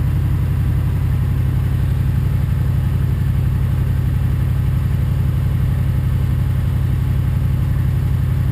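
A motor running steadily with a low, even drone that does not change pitch or level.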